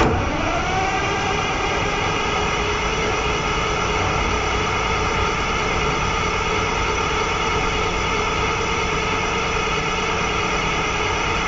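Large mining excavator's diesel engine running steadily, with a whine that rises in pitch over the first second and then holds.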